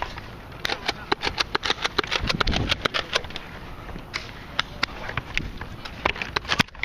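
Nerf blasters firing in the middle of a game: a steady patter of sharp pops and clicks, several a second, with a quick run of shots just after one second in.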